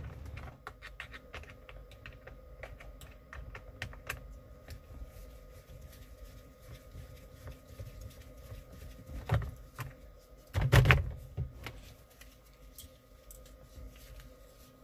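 Scattered small clicks and taps of a Phillips screwdriver and hands working out a screw under a plastic steering column cover. Two louder knocks come about nine and eleven seconds in.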